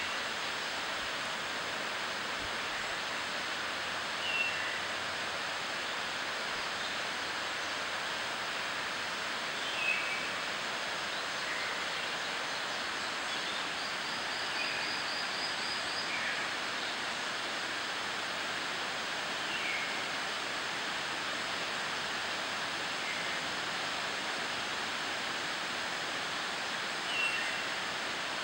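Amami thrush singing short whistled phrases, one every few seconds, over a steady rushing background noise.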